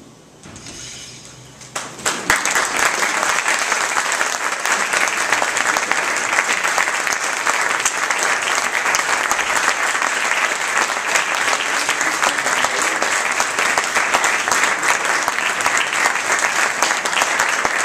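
Audience applauding, breaking out about two seconds in and going on steadily.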